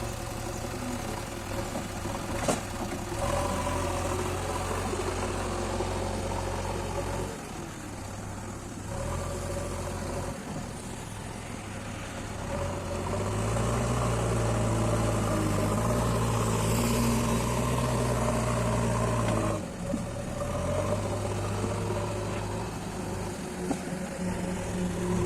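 Diesel engine of a JCB backhoe loader running steadily, getting louder for several seconds past the middle as it works under load, then dropping back.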